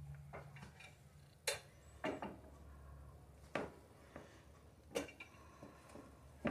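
Several sharp, irregular clicks and taps, roughly a second apart, from handling an open spinning reel and working a cotton swab into its works to clear caked, dried grease.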